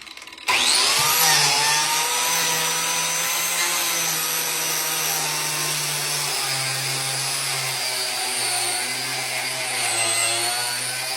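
An electric power tool spins up about half a second in with a quickly rising whine, then runs steadily while cutting a groove along a wooden board.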